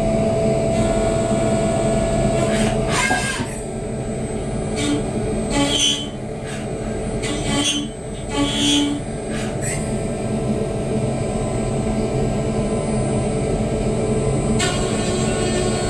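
Dure Vertical 5060 CNC vertical milling machine running with a steady mechanical hum. A steady tone cuts off about three seconds in, and a run of short clicks and knocks follows. A high whine comes back near the end.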